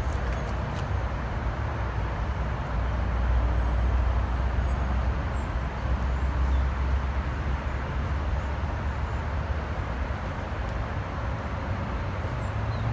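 Steady outdoor background rumble, strongest at the low end, swelling slightly a few seconds in and easing again.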